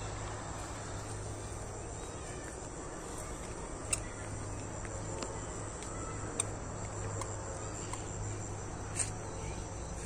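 Insects chirring steadily in a continuous high-pitched drone, with a few light clicks.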